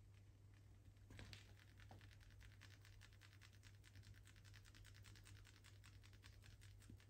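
Faint, rapid scratchy rubbing of hands over a person's face, ears and hair during a massage, several strokes a second, over a steady low electrical hum.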